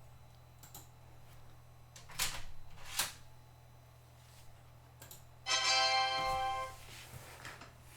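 A low steady hum, two sharp clicks, then a held electronic tone lasting about a second.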